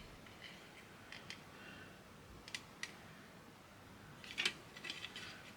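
Faint, scattered small clicks and taps of plastic model-kit parts being handled and pressed together in a test fit, with a small cluster of clicks near the end.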